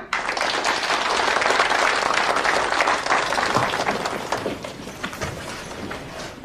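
A group of people applauding, many hands clapping at once, dying away over the last couple of seconds.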